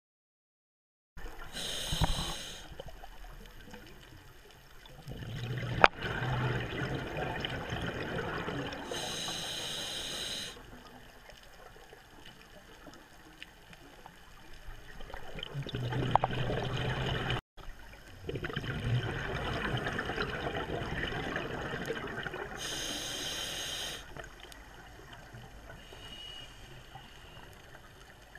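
Scuba diver breathing underwater through a regulator: short hissing inhalations and longer bubbling, gurgling exhalations, a few breaths in all, with a sharp click about six seconds in.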